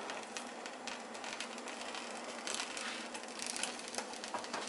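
Leftovers sizzling in a covered skillet on a gas burner: an even frying hiss with a crackle of small pops as the cheese melts and the bottom crisps, and a few louder ticks a little past the middle.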